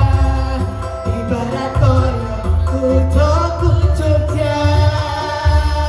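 Mixed choir singing with electronic keyboard accompaniment, holding a long chord near the end.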